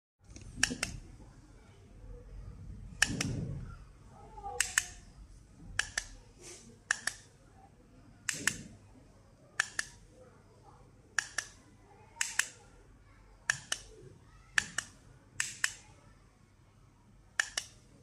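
Buttons on a handheld LED strip controller panel clicking, mostly as quick double clicks of press and release, repeated about every second or so, about a dozen times.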